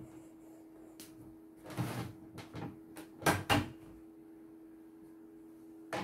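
Clicks and knocks of the plastic embroidery hoop and embroidery unit of a CNY embroidery machine being handled and fitted, a cluster about two seconds in and the loudest pair about three and a half seconds in, over a steady low hum.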